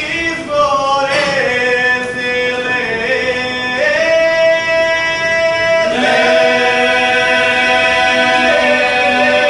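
Male vocal group singing a Serbian traditional folk song a cappella, several voices together in long held notes that shift pitch every second or two.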